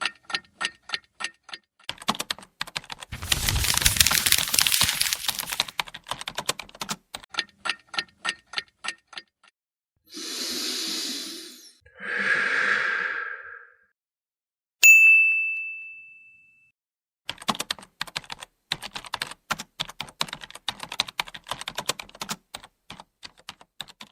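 Keystrokes clicking in runs of typing, with a loud rushing burst a few seconds in and two softer swells later. About fifteen seconds in a single bell ding rings out and fades, and the typing starts again.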